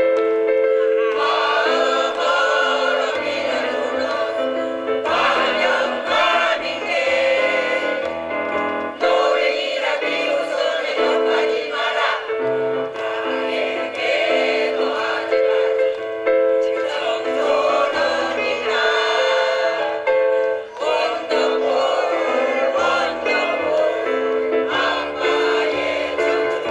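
Mixed choir of older men and women singing in harmony, with long held notes.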